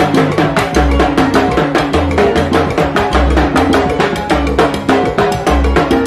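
Live salsa band playing, with timbales struck in quick stick strokes over a repeating bass line.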